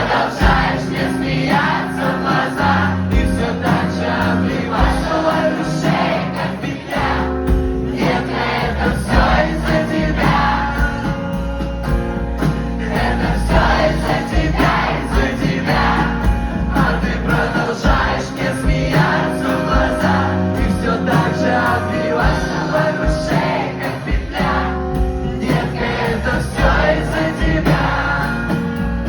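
Live band music from an acoustic set, with singing that sounds like several voices together.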